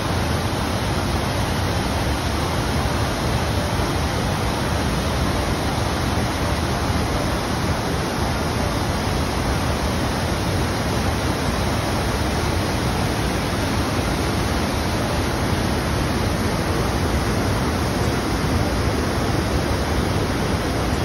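Whitewater of the Rogue River rushing through a narrow rock gorge: a steady, even rush of water.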